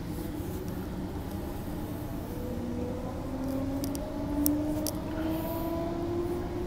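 Electric multiple unit train heard from inside the carriage as it pulls away from a station: a motor whine rising slowly and steadily in pitch as the train picks up speed, over the steady rumble of the running gear.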